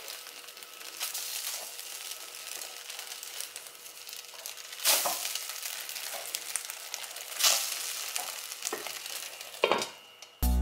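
Oat patties sizzling faintly and steadily in a dry non-stick frying pan with no oil, while a silicone spatula turns them, with a few short clatters of the spatula against the pan. A glass lid is set on the pan near the end.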